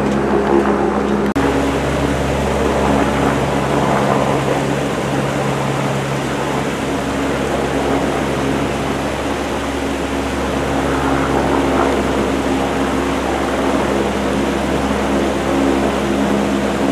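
An engine running steadily at a constant pitch, over a continuous rushing noise.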